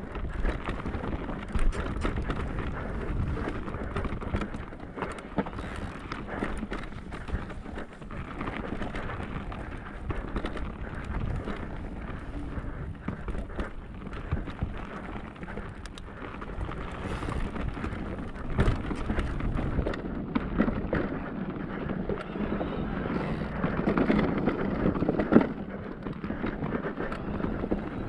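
Cube Stereo Hybrid 160 electric mountain bike riding a rough trail: tyres rumbling over the ground and the bike rattling, with frequent sharp knocks.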